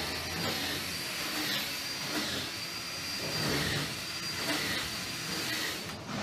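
Power drill running in a steady whine that dips in pitch and recovers several times.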